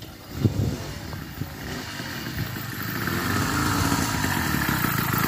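80cc two-stroke motorized-bicycle engine running under way, getting louder over the first three seconds, then steady.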